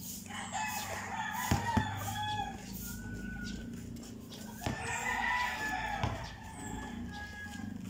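A rooster crowing twice, each crow about two seconds long, with a few sharp knocks of a basketball bouncing on the concrete court.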